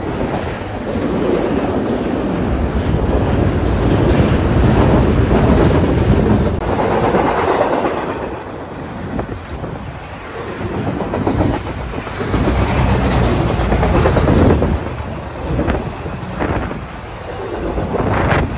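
A train passing close by, its cars rolling loudly along the rails, the noise swelling and easing as it goes.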